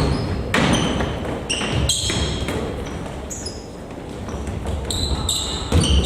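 Sounds of a basketball game in a gym: rubber-soled basketball shoes squeaking sharply and often on the hardwood court, with a few thuds of the ball bouncing.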